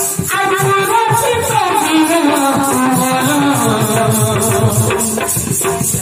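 Folk music: a melody that slides slowly downward in pitch over a steady rattle beat.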